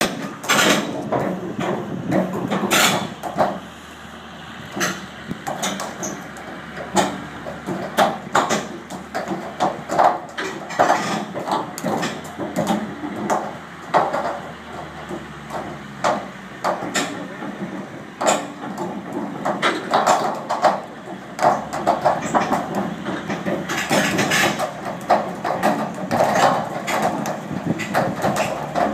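Forklift engines running under load as they push the wheeled steel cradle carrying the ship, with frequent irregular knocks and clunks of wood and metal from the cradle and its timber shoring.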